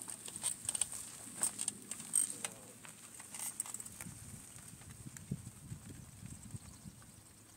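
Bicycle clicking and rattling as it is mounted and pedalled off over rough ground. The clicks come thick for the first few seconds, then thin out and fade as the bike moves away.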